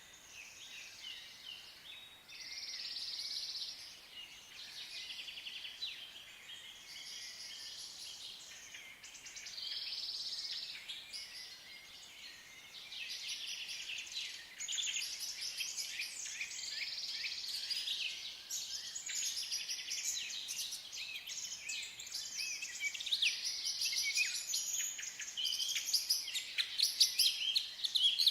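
Several birds singing at once: overlapping high song phrases and trills, one after another, growing busier and louder towards the end.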